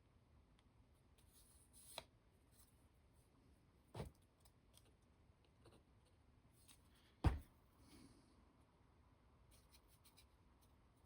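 Near-silent workbench with faint handling noises and three short clicks or knocks from small parts being set down, about two, four and seven seconds in; the last is the loudest.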